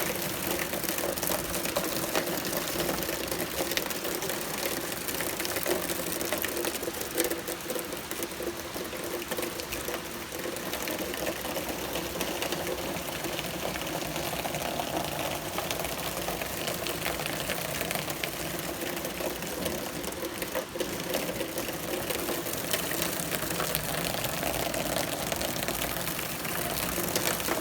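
Steady rain shower falling, a dense even patter and hiss of drops.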